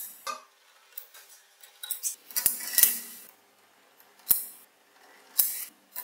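Small magnetic metal balls clicking and clattering against one another as a slab of them is handled and pressed onto the model: a handful of sharp separate clicks and short rattles about a second apart.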